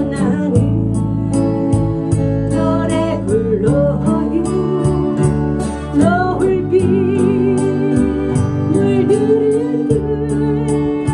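A woman singing a Korean ballad to her own strummed acoustic guitar, with steady, evenly spaced strokes; about two thirds of the way in she holds a long note with vibrato.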